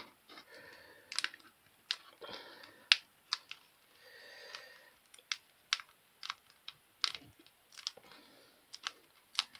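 Thin clear plastic resin mould being flexed and bent by hand, giving irregular sharp clicks and crackles with faint rustling between them as the red resin casting comes loose from it.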